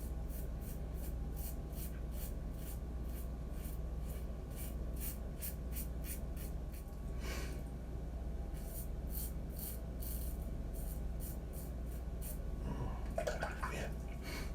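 Razor scraping through stubble and lather in short, quick strokes, about three a second, with a brief pause midway. This is a harsh, rough shave.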